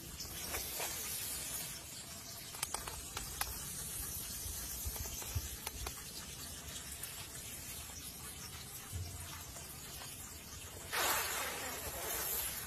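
A snake's breathy hiss about eleven seconds in, lasting a second or two, over a faint steady background hiss with a few soft clicks.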